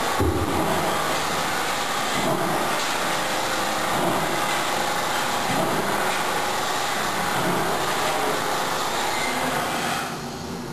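Aluminium radiator tube mill running: steady mechanical noise of the roll-forming line as aluminium strip feeds off the coil, swelling about every two seconds. The noise drops somewhat near the end.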